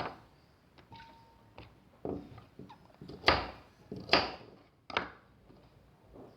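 A knife chopping fresh rhizomes (turmeric, ginger, temulawak, kencur) on a wooden board: several separate knocks, roughly a second apart, from about two seconds in.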